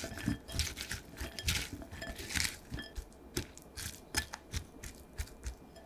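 Hands tossing salted, thinly sliced cucumber, onion and carrot in a glass bowl: irregular soft rustles of the vegetables with light clicks against the glass.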